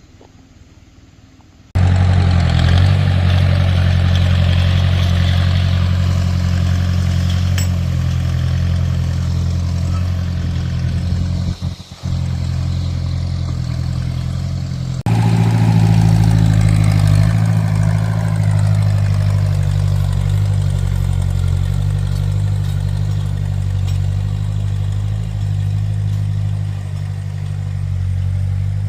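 An engine running steadily. It starts abruptly about two seconds in, and its tone shifts suddenly about halfway through.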